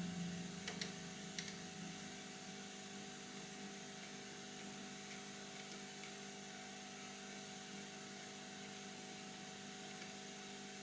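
Steady electrical hum with a fan-like hiss from running bench equipment, with a few faint sharp ticks about a second in.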